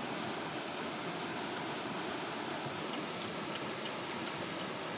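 Rushing mountain stream spilling over rocks, a steady even whoosh, with a few faint ticks a little past the middle.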